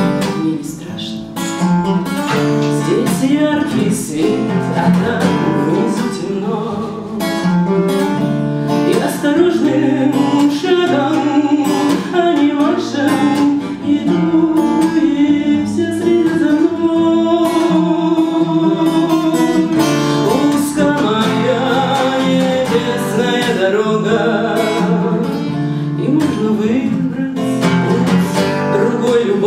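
A woman singing a Russian song, accompanying herself by strumming a steel-string acoustic guitar.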